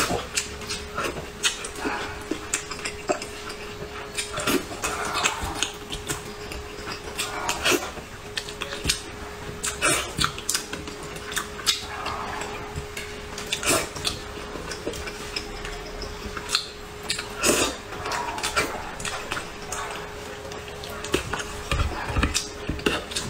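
Close-miked eating of braised fish in sauce: chewing and slurping mouth sounds, with frequent sharp clicks of wooden chopsticks against a ceramic bowl. A faint steady hum runs underneath.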